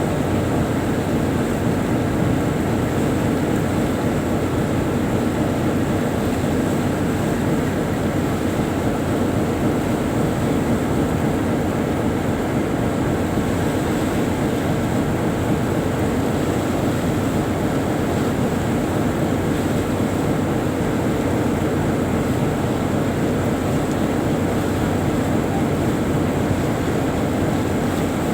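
Tugboat's diesel engines running at a steady cruising speed, a constant loud drone with no change throughout.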